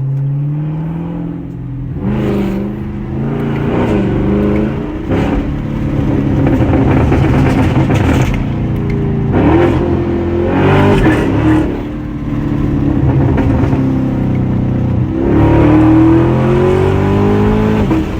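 Chevrolet Camaro LT1's 6.2-litre V8 exhaust revved again and again, the pitch rising and falling in several surges, with crackles and pops as the revs come down.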